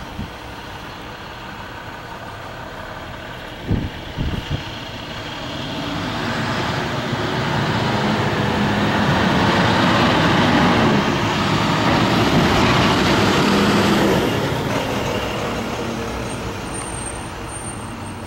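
A vehicle passing by, its noise swelling over several seconds and then fading away. A couple of sharp knocks about four seconds in.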